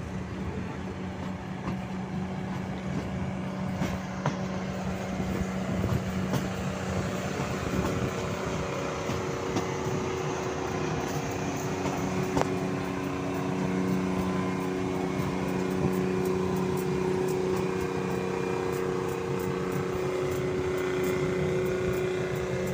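Passenger train moving slowly out of a station, heard from aboard: a steady rumble with a low drone from the train's running gear and locomotive, getting a little louder from about 13 seconds in.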